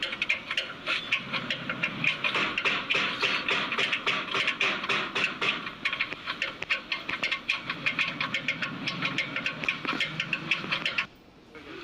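Ratchet wrench clicking rapidly as fasteners are undone, several clicks a second; it stops suddenly near the end.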